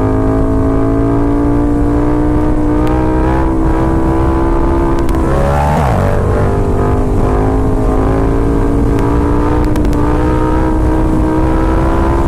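KTM 1290 Super Duke R's V-twin with an aftermarket Austin Racing exhaust, heard from on the bike under steady throttle, its note slowly rising. About five and a half seconds in the pitch drops, an upshift, then climbs again.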